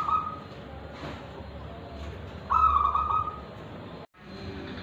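Zebra dove (perkutut) singing its cooing song: the end of one phrase at the very start and one full phrase about two and a half seconds in. The sound cuts out for a moment near the end.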